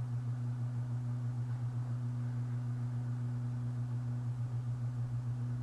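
A steady low hum at one pitch, with a fainter higher line above it, unchanging throughout; nothing else is heard.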